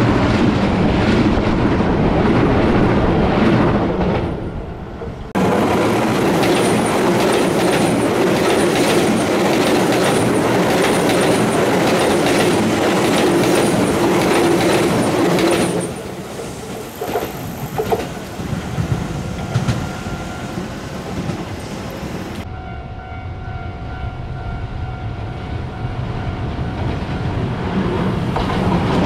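Electric commuter train running past on curved track, its wheels clicking rhythmically over the rail joints. The sound changes abruptly about five seconds in and again about two-thirds through, as at cuts between recordings, and is quieter near the end.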